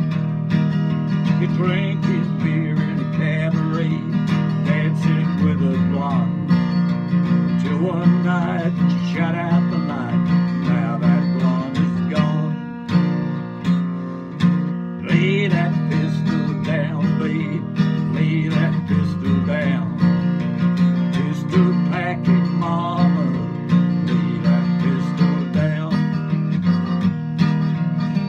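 Acoustic guitar strummed steadily in a country rhythm.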